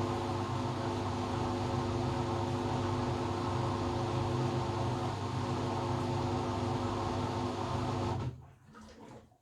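LG washing machine on its spin cycle, the drum and motor running steadily with a hum of several steady tones. The sound cuts off suddenly about eight seconds in.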